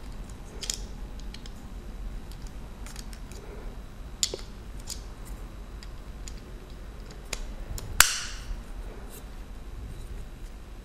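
Hard plastic clicks and handling noise from a plug-in power adapter with snap-on plug heads, a few light clicks spread out and one sharp snap about eight seconds in.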